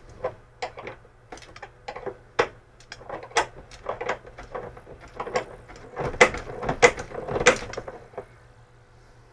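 Socket ratchet clicking in short irregular runs as the fridge door's hinge bolts are backed out, with the loudest clicks a little past the middle. A low steady hum sits underneath.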